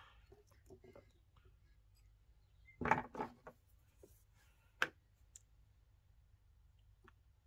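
Faint handling clicks and knocks from a nickel strip on an 18650 cell in a small metal vise and the spot welder's pens being picked up: a short cluster of knocks about three seconds in, then one sharp click near five seconds.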